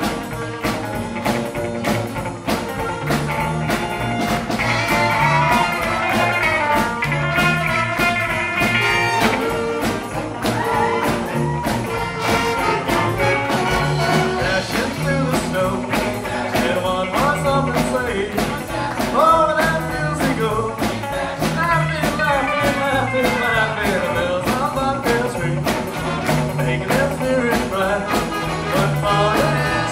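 A live rockabilly band playing at full volume: drums keep a steady beat under electric guitars, upright bass, saxophones and brass.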